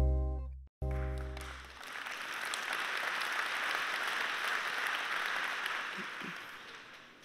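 A held chord of music ends in the first couple of seconds, then an audience applauds for about five seconds, the clapping fading out near the end.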